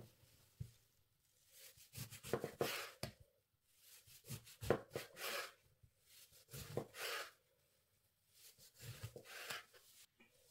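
Food being handled and prepared on a kitchen counter: short bursts of rubbing and scraping with small clicks, four of them about two seconds apart.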